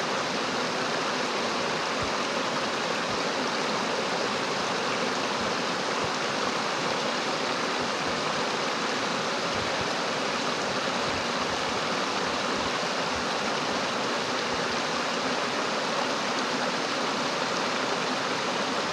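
Rushing water of a rain-swollen stream or channel: a steady, even rush with no change.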